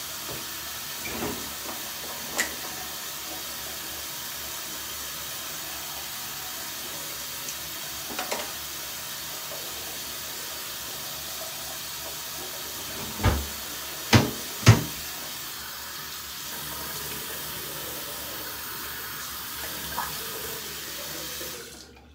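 Bathroom sink tap running steadily while water is splashed with the hands, with three louder splashes about two-thirds of the way through. The tap shuts off abruptly near the end.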